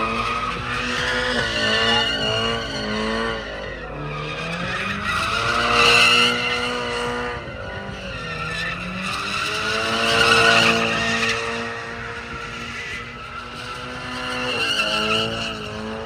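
A car doing donuts: its engine revs hard, rising and falling, while the spinning rear tyres squeal and skid. The tyre squeal swells loudest about six and ten seconds in.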